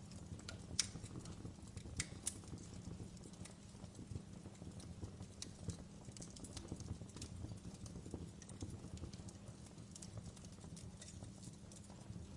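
Wood fire crackling in a stone fireplace: a steady low rumble of flames with scattered sharp pops and snaps, the loudest of them about a second and two seconds in.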